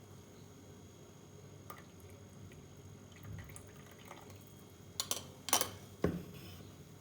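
Light kitchen handling sounds: a few separate clinks and knocks of utensils or dishes, the sharpest two close together about five seconds in and a duller knock a second later, over a faint steady hum.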